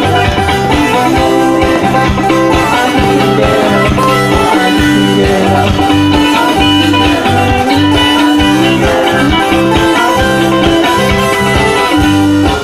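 Background music with a repeating bass line and long held melody notes.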